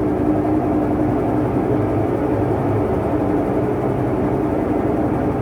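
Daewoo washing machine on its spin cycle, the basket turning at speed with a loud, steady mechanical drone and hum that keeps getting harsher: the noise of a failed transmission, which the repairman says has reached the end of its life and is leaking rusty water.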